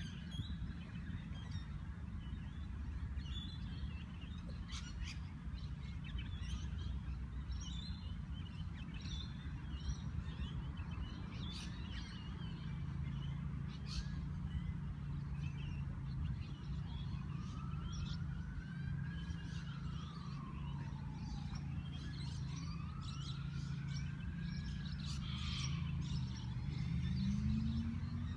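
Park ambience: many birds chirping in short, scattered calls over a steady low rumble. Twice in the second half, a slow whistle-like tone rises and then falls, each lasting a few seconds.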